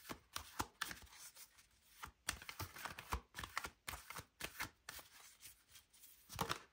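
Tarot cards being shuffled and handled, a faint run of irregular card clicks and taps.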